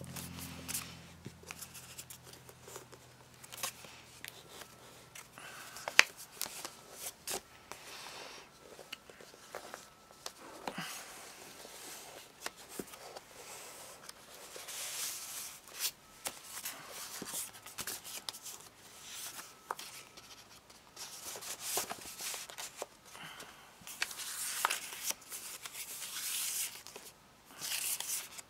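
Paper rustling and sliding as scrapbook pages and tucked-in cards are handled, with scattered light taps and clicks. One sharp click about six seconds in is the loudest sound, and the rustling comes in longer stretches in the second half.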